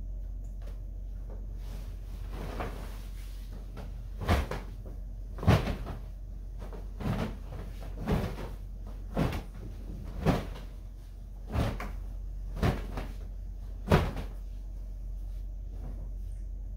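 A string of about nine sharp knocks and bumps, roughly one a second, over a steady low hum.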